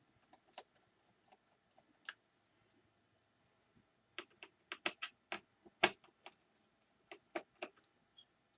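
Irregular small clicks and taps of a magnetic-tipped Phillips screwdriver and its screws against a laptop's plastic case as the case screws are taken out. A few scattered clicks come first, then a quicker run of about a dozen from about four seconds in.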